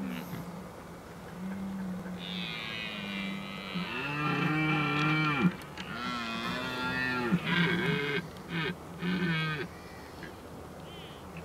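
Red deer stag roaring in the rut: a fainter low call, then two long roars followed by three shorter ones in quick succession.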